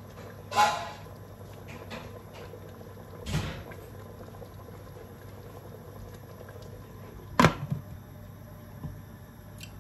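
Metal cookware knocking and clattering three times over a steady low hum; the first knock, about half a second in, rings briefly, and the sharpest comes about seven and a half seconds in.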